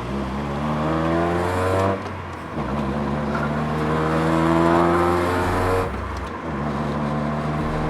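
Honda Prelude's four-cylinder engine accelerating through the gears. The revs rise, drop at a gear change about two seconds in, climb again, and drop at another shift about six seconds in before running steady.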